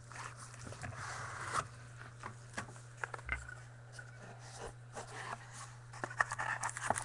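Trading cards and their pack wrapper being handled: a rustle of wrapper and cards sliding in the first second and a half, then scattered light clicks and scrapes of cards against each other, over a steady low electrical hum.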